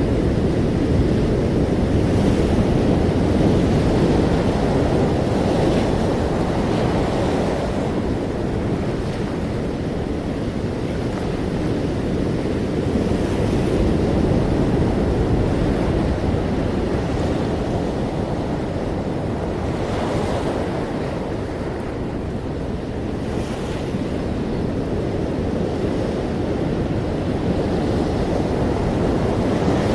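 Ocean waves washing in continuously, a steady rushing noise that swells and eases slowly, with a few brighter hissing washes.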